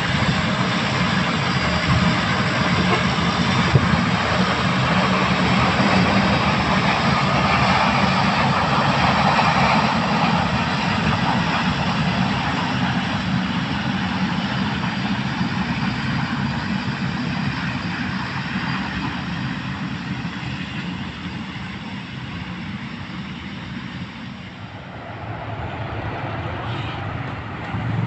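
Bombardier Dash 8 Q400 turboprop, its two turboprop engines and propellers running as it rolls down the runway, loud at first and slowly fading as the airliner moves away.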